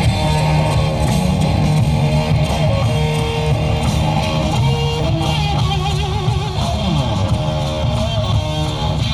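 Electric guitar playing a lead line with string bends over a sustained low note, with a wide vibrato on one note about six seconds in and a slide down in pitch shortly after.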